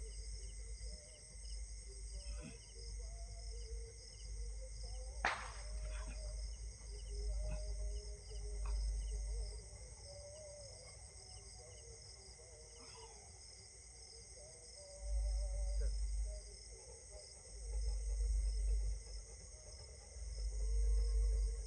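Steady high-pitched insect chorus, with uneven low rumbling surges and a single sharp click about five seconds in.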